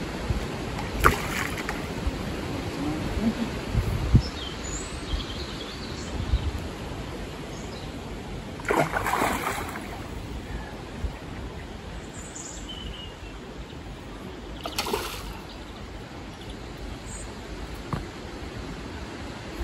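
A hooked carp splashing and thrashing at the surface while it is played in close to the bank. There are three short splashes, the biggest about nine seconds in, over a steady low outdoor rumble, with a few faint bird chirps.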